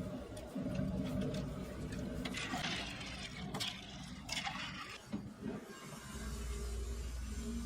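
Workshop machinery running with a steady low hum, with several sharp clicks and scrapes in the middle; the hum grows stronger near the end.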